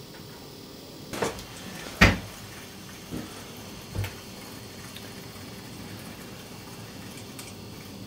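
A few short knocks and thumps in a small room, the loudest about two seconds in, with smaller ones about a second before and after it, over a faint steady background hum.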